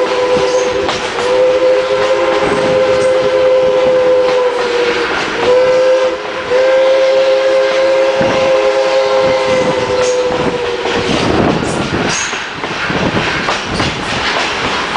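Steam locomotive's chime whistle blowing a long blast, a short one and another long blast, heard from a passenger coach of the moving train. Under it and after it the coach's wheels clatter over the rail joints.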